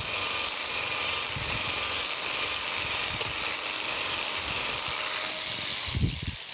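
Biax electric power scraper running, its reciprocating blade scraping the cast iron ways of a planer base with a steady hissing chatter and irregular low knocks. This is blind scraping that leaves a crosshatch pattern in the ground surface. The scraper stops shortly before the end, with a low thump.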